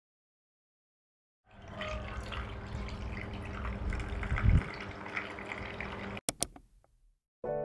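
Milk poured from a bottle over ice cubes into a glass tumbler, a steady splashing pour of about four and a half seconds that starts after a silent second and a half. Two sharp clicks follow just after the pour stops.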